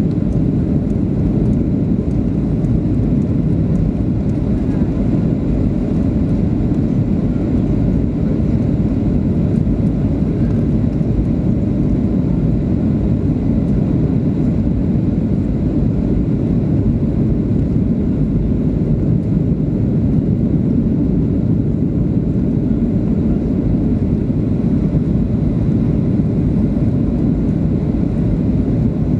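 Steady cabin noise inside a Boeing 737-800 on its descent to land: the hum of its CFM56 engines and the rush of air past the fuselage, mostly low in pitch, even and unchanging.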